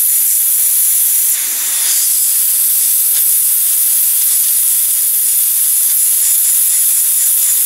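Steady high hiss of hot nitrogen blowing from a plastic hot-air welding gun's speed tip as a filler rod is melted into a plastic bumper.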